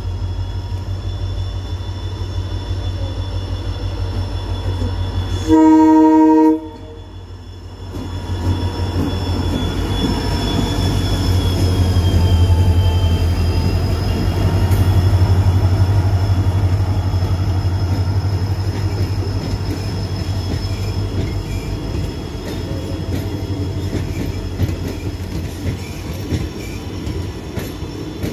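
Indian Railways diesel locomotive approaching and passing with its engine rumbling. It sounds one loud horn blast of about a second roughly six seconds in, and the engine noise swells as it goes by. Passenger coaches then roll past, their wheels clicking over the rail joints.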